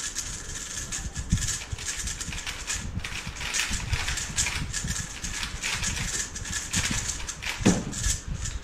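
Rapid, irregular clicking and clacking of a 3x3 speedcube being turned fast during a solve, ending with a louder knock near the end as the hands come down on the timer to stop it.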